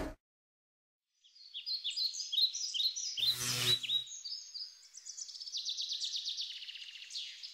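Silence for about a second and a half, then a small bird chirping a quick series of sharp, falling notes that run into a fast trill near the end. A short noisy burst with a low hum comes about three seconds in.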